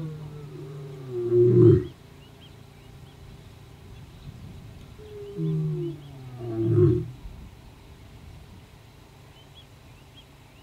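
Male lion (white lion) giving territorial roars toward rival males: two loud, deep roars about five seconds apart, each swelling to a peak and falling in pitch.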